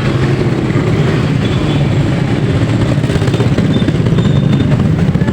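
A vehicle's engine running steadily on the move, with road and wind noise.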